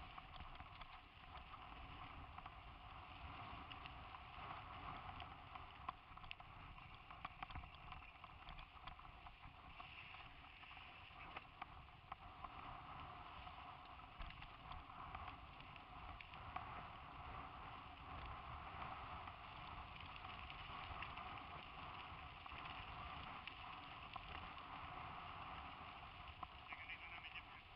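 Ride noise from a helmet-mounted camera on a mountain bike rolling along a dirt track: a steady rushing hiss over a low rumble, with many small rattles and ticks from the bumps.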